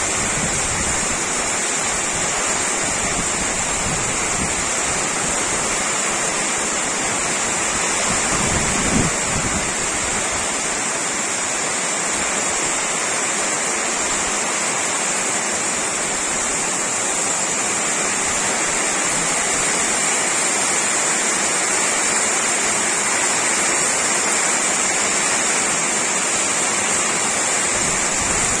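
Heavy tropical downpour with strong wind: the rain falls steadily and hard throughout, with gusts unsettling the sound in the first several seconds. A brief thump comes about nine seconds in.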